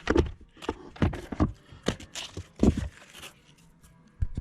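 Sanding discs handled close to the microphone: a run of short rough scrapes and crackles, with a sharp knock near the end.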